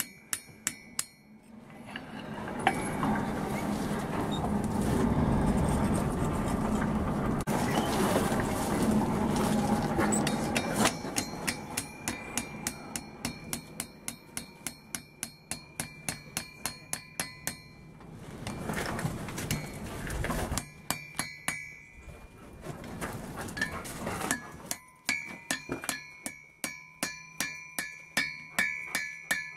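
Hand hammer striking a hot iron bar on an anvil, with the anvil ringing after each blow: several runs of steady strikes at about two a second. For several seconds after the start, and again briefly past the middle, the strikes stop and a steady rushing noise is heard.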